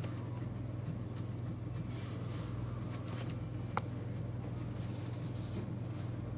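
A steady low hum with faint scratchy rustling on and off, and a single sharp click a little under four seconds in.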